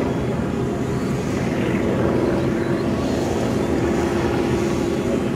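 Propeller engine of an aerobatic airplane running under high power, a steady drone as it builds speed in flight.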